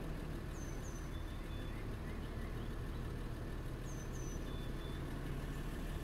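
A steady low engine hum, as of a vehicle idling. A few faint, short high chirps sound over it about half a second in and again about four seconds in.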